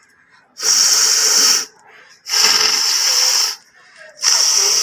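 A person blowing their nose hard three times, each forceful blast of air through the nostrils lasting about a second, with short pauses between.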